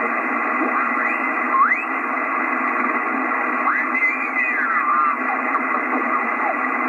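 Icom IC-756PRO II transceiver receiving 40-metre band noise in lower sideband as the tuning dial is turned: a steady hiss with a few whistling tones that slide up and down as it tunes across signals, about a second in and again around four seconds in.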